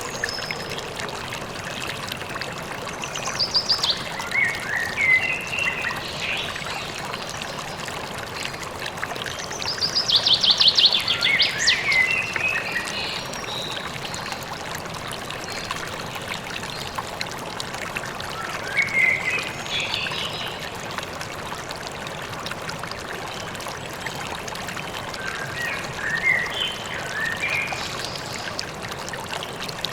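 A river or stream running steadily, with songbirds singing short phrases every several seconds over it; the loudest is a fast trill about ten seconds in.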